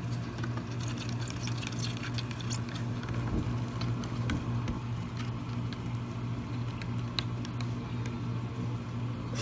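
A hamster scrabbling on carpet with a plastic bottle stuck over its body: scattered small scratches, taps and rustles of claws and plastic, over a steady low hum.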